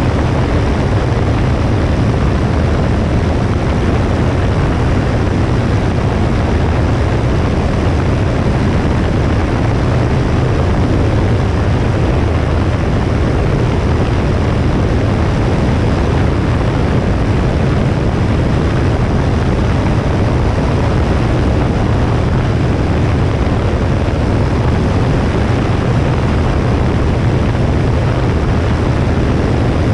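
Steady drone of a Cessna 172S's four-cylinder engine and propeller, mixed with wind rushing over a wing-mounted GoPro camera, heaviest in the deep bass.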